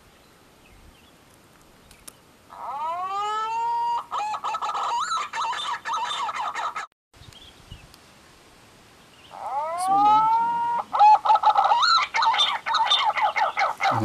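Green pigeon (punai) calls: two long runs of warbling, whistled notes that swoop and bend in pitch, the first starting about two and a half seconds in and the second about nine seconds in, with a brief dropout between them.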